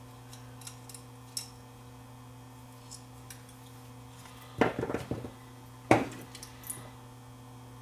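Metal hand tools clinking on a workbench as needle-nose pliers are picked up: a short clatter a little past halfway and a single sharp click about a second later, over a steady electrical hum.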